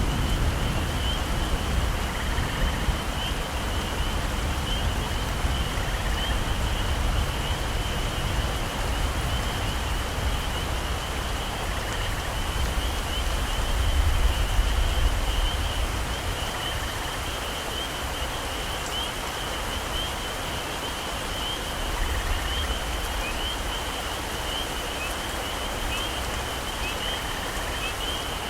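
Heavy tropical rain falling steadily on forest foliage, with a steady high-pitched animal trill over it. Low rumbles of distant thunder swell and fade at the start, about halfway through, and again a little later.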